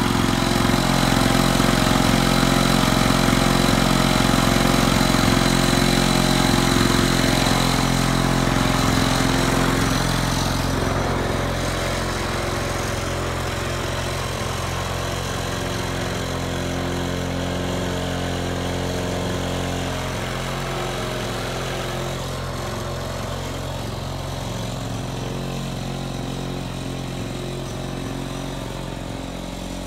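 International Harvester Cub Cadet 3322 push mower's Lawn-Boy two-stroke engine running steadily and sounding good, with its carburetor freshly cleaned. After about ten seconds it grows gradually quieter as the mower is pushed away.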